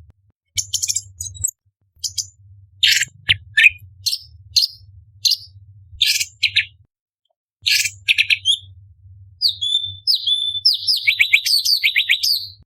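Orange-bellied leafbird singing: a string of short, sharp chips and whistled notes with a brief pause about seven seconds in, ending in a quick run of downward-sliding notes.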